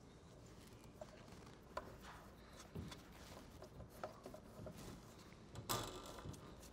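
Faint clicks and scrapes of adjustable wrenches on the metal fittings of a cable railing as the threaded tensioner is turned to tighten the cable, with a short louder rustle near the end.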